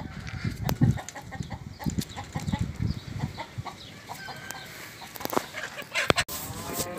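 Hens clucking in short, scattered calls, with a few sharp knocks and low wind or handling rumble.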